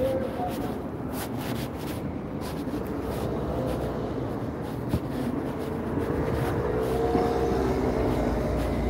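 Steady low outdoor rumble of traffic and rail noise, growing a little louder toward the end. A faint wavering whine comes in about six seconds in.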